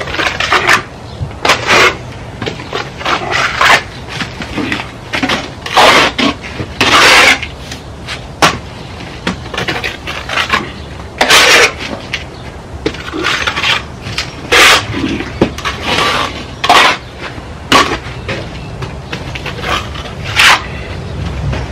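Plastering trowel scraping render mix off a mixing board and spreading it onto a brick wall: irregular scrapes and clacks, some short, some lasting about half a second, every second or so. The mix is sand render with extra lime.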